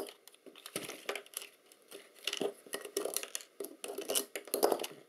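Plastic parts of a Canon Epoca camera being handled and taken apart with a small screwdriver: a string of irregular clicks, rattles and scrapes.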